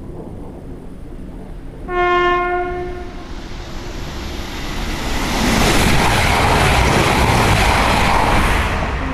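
High-speed passenger train on an electrified main line sounding one blast of its horn about two seconds in. It then passes at speed, the rush of wheels on rail building to a peak and easing off near the end.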